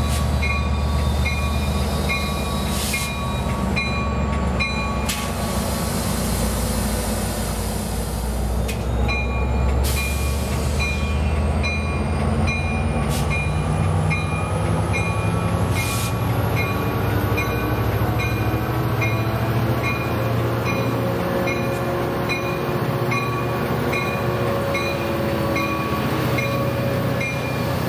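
Sound Transit Sounder commuter train's diesel locomotive running at the station, then throttling up as it pulls out and passes close by, its engine note rising. A bell rings at a steady pace throughout.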